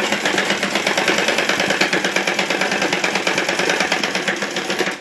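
Old domestic sewing machine stitching at speed, a rapid, even clatter of the needle mechanism as a lace border is sewn onto a saree edge, stopping right at the end. The stitching secures the seam at the turned corner.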